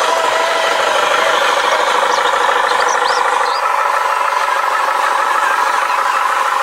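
Engine-like running sound at a steady idle, with a fast, even rhythm. A few short high chirps come about two to three and a half seconds in.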